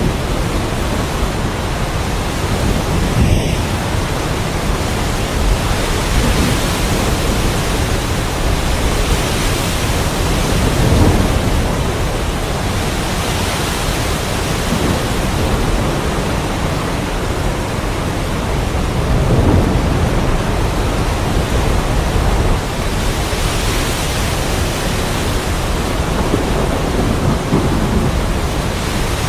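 Heavy rain falling steadily, with low rumbles of thunder that swell about a third of the way in and again past the middle.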